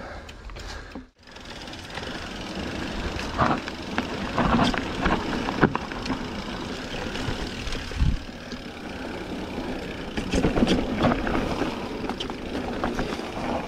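Mountain bike riding down a rough trail: a continuous rumble of tyres on dirt and rock with irregular knocks and rattles from the bike.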